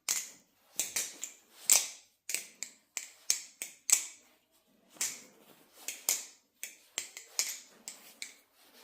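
Kraken balisong trainer being flipped by hand: a string of sharp metal clicks and clacks as the handles swing round and knock together, coming in uneven clusters one or two times a second.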